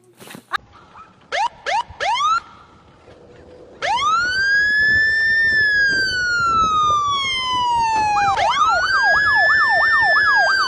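Emergency vehicle siren: three short rising chirps, then a long wail that rises and slowly falls, then switches to a fast up-and-down yelp near the end.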